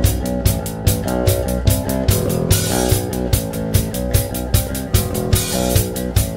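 Experimental rock band playing live: drum kit keeping a steady beat with regular cymbal and drum hits over guitar and held low bass notes.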